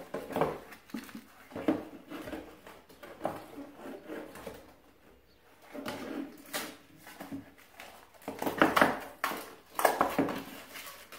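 Cardboard box being ripped open and its packaging handled: irregular tearing and rustling with small knocks, going quieter for a moment about halfway through.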